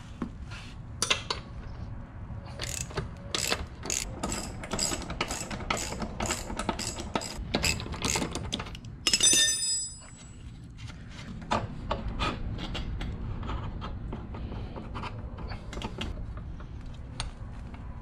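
Socket ratchet clicking in rapid strokes as it undoes the minibike's rear axle nut. About nine seconds in a metal tool gives a short bright ring, followed by lighter clicks and rubbing of metal parts being worked by hand.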